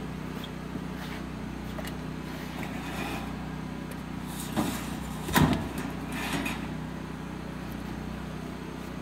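A steady low motor hum runs throughout, with two sharp knocks a little past the middle, the second the louder.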